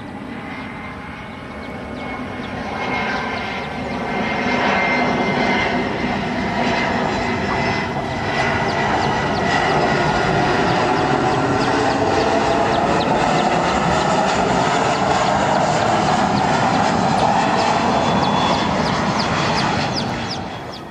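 Boeing 737-300 airliner's CFM56-3 turbofan engines on landing approach: jet engine noise with a thin whine in it, building over the first five seconds as the plane comes closer and staying loud, then falling away sharply near the end.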